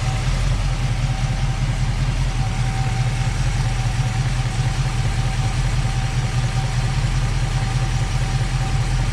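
Car engine idling steadily, a low even hum with a thin steady tone above it, while its cooling system is being burped of air with the radiator cap off after a thermostat change.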